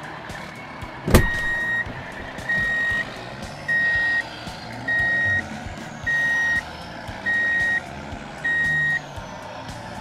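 Truck reversing beeper sounding seven evenly spaced steady beeps, about one every 1.2 seconds, after a sharp click about a second in.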